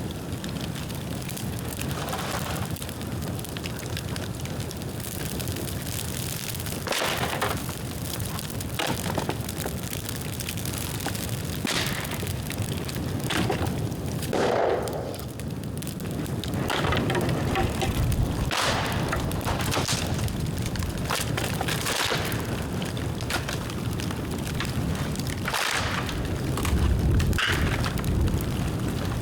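Dry dead bamboo burning in an open bonfire: a steady crackling fire with frequent sharp cracks and pops scattered throughout.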